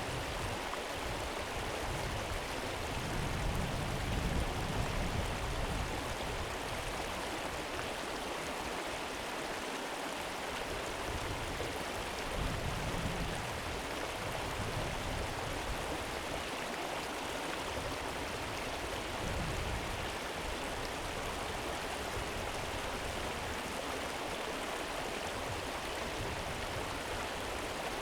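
A river flowing over its bed: a steady, even rush of running water. Now and then a soft low rumble swells up under it, most strongly around four seconds in.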